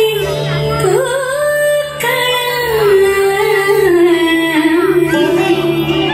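Recorded Indian classical song for the dance: a woman singing a slow melody that glides between held notes, over a steady low drone.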